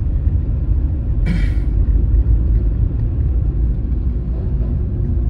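Steady low rumble of a car being driven, heard from inside the cabin. A brief high-pitched sound cuts in about a second in.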